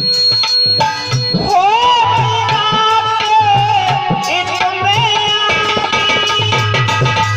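Indian folk-song accompaniment between verses: a hand drum keeps a steady rhythm, and about a second and a half in a melody line comes in, gliding up and wavering before holding one note.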